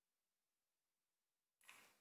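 Near silence, with a short faint hiss about one and a half seconds in that fades away.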